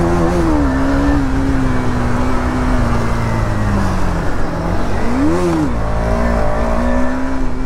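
KTM Duke 250's single-cylinder engine under way: it holds a steady pitch, sags about four seconds in, then gives a quick throttle blip that rises and falls before settling back to a steady pull.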